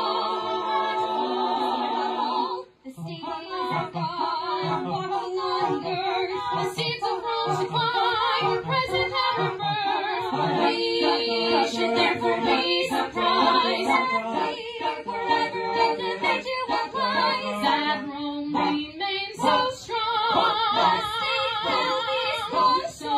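A group of voices singing unaccompanied, several wavering sung lines overlapping at once in a dense, clashing tangle, with a short break about three seconds in.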